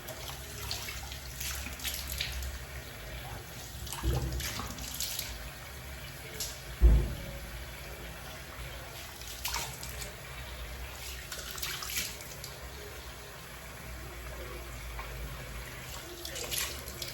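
Water running from a tap into a sink, with repeated splashes as hands rinse a charcoal face mask off a face. There is one dull thump about seven seconds in.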